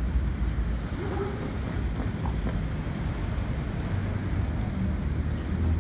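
Street traffic noise: a steady low rumble of cars on the road, swelling a little near the end as a vehicle passes.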